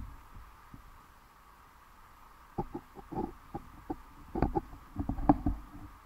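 Muffled sound picked up by a camera under shallow water: a faint low rumble, then from about halfway through an irregular run of soft knocks and clicks.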